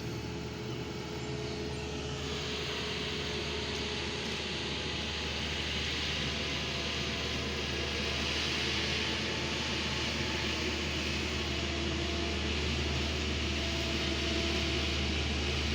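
Engines of road-paving machinery running steadily, a low hum with a hiss that comes in about two seconds in, growing slowly louder.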